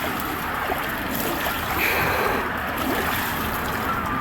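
Hot steel railroad-rail anvil being quenched in a tub of water, the water boiling and bubbling steadily around the steel with many short squeaks, making a hell of a lot of noise, with a hose running into the tub.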